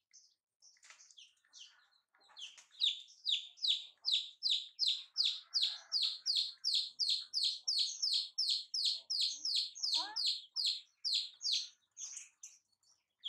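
Baby chicks peeping: a long, even run of high, falling peeps, about three to four a second, starting about two seconds in and stopping near the end. A short rising squeak cuts in about ten seconds in.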